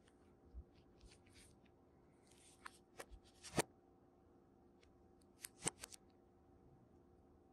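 Folding knife blade slitting the seal sticker on the end of a cardboard phone box: faint scratching broken by a few short, sharp clicks, the loudest a little past three and a half seconds in and another near six seconds.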